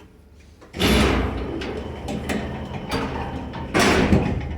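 Passenger lift's sliding doors and mechanism clattering, starting suddenly about a second in and with a second loud clatter near the end.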